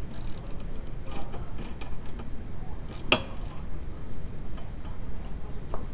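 Small clicks and taps as gloved hands handle the wiper pivot and plastic cowl parts, with one sharp metallic clink about three seconds in, over a steady low background hum.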